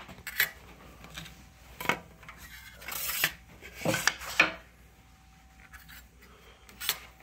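Thin copper sheet-metal strip handled on a steel shop table or shear bed: a few sharp metallic clicks and clatters, with one longer scrape about three seconds in.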